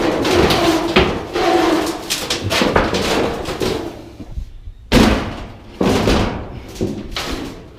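Scrap metal being handled and tossed: a run of clanks and knocks with ringing metal tones in the first few seconds, then two louder bangs about five and six seconds in.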